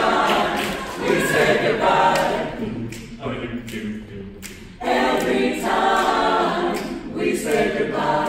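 Mixed a cappella group of women's and men's voices singing in harmony. The voices drop back about three seconds in, then the full group comes back in strongly near five seconds.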